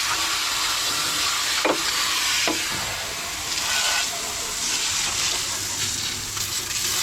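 Water from a hose spraying onto the metal of a Cat 953C track loader's engine bay and hydraulic pumps, a steady hiss and patter, with two brief knocks about two seconds in.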